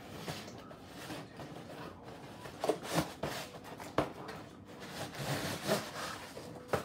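Cardboard toy box being pulled and pried open by hand: scraping and rustling of cardboard with several sharp cracks, the loudest around three and four seconds in.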